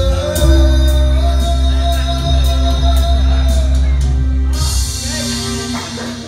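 Live band ending a rock ballad, with a long held note over a sustained chord and heavy bass. A cymbal crash comes about two thirds of the way through, then the music dies away.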